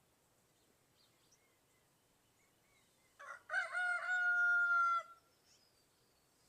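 A rooster crowing once: a short rising start followed by a long held note lasting about two seconds.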